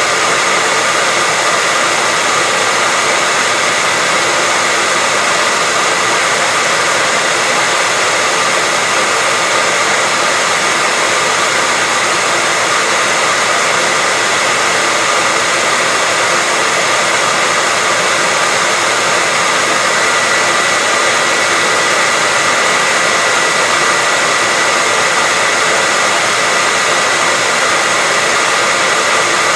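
Hairdryer running steadily on a constant setting: an even rush of air with a thin steady whine from its motor and fan.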